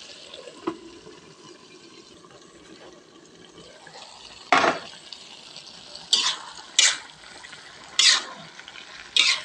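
Wok of bamboo shoots, tofu and tempe simmering with a soft steady sizzle and a light clack near the start. From about four and a half seconds in, a spatula scrapes through the wok in five sharp strokes.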